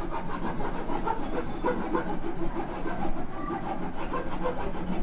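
Hacksaw blade sawing by hand through a thick, double-layer plaster-of-Paris false-ceiling sheet, with quick rasping strokes.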